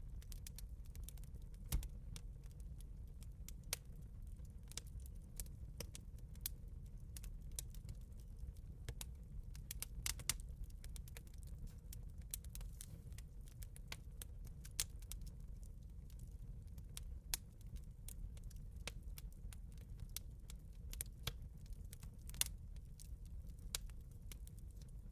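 Wood bonfire crackling: irregular sharp snaps and pops over a steady low rumble of the burning fire, with a few louder pops scattered through.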